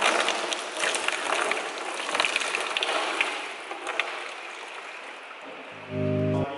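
Engine coolant pouring out of a car radiator and splashing onto the floor, with small metallic clinks; the splashing fades out over the second half. Music comes in near the end.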